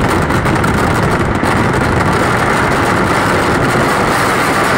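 Dense, unbroken barrage of vedikkettu fireworks: blasts come so fast that they merge into one continuous rumble and crackle, loud and steady, with no break.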